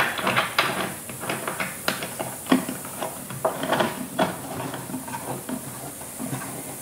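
Irregular small clicks and scrapes of a bilge pump outlet fitting's washer and retaining ring being handled and threaded on by hand, with a couple of sharper knocks about two seconds in.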